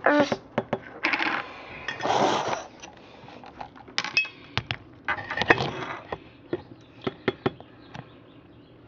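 Handling of a glass jar and its lid: a run of small sharp clinks and taps, with a few short bursts of rustling from catnip leaves about one, two and five seconds in.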